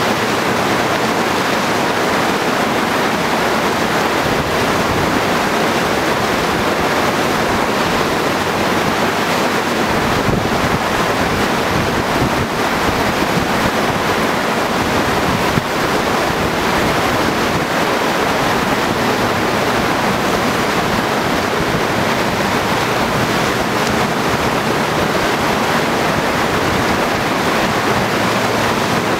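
Steady rushing whitewater of a standing river wave, churning continuously, with wind on the microphone.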